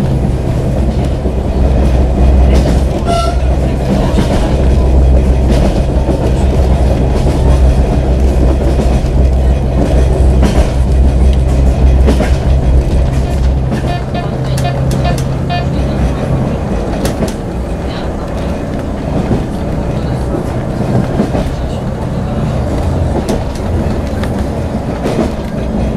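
A diesel multiple unit running, heard from inside the carriage: a steady rumble and a deep engine hum, with clicks of the wheels over rail joints. About halfway through, the deep engine note drops away and the running becomes quieter.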